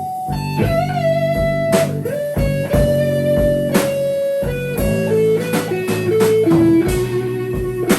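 Live improvised instrumental band music: an electric guitar plays long sustained notes that slide and bend between pitches, over held bass notes, with occasional sharp percussive hits.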